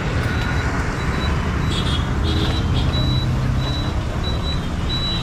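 Tuk-tuk (auto-rickshaw) engine running up close with a steady low rumble, a faint broken high-pitched beeping over it and a few light clicks near the middle.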